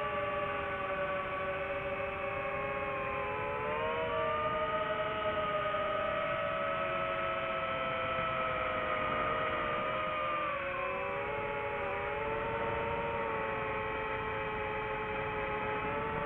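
FPV quadcopter's electric motors whining: several steady tones that drift up and down in pitch together as the throttle changes, rising about four seconds in and falling again near the ten-second mark.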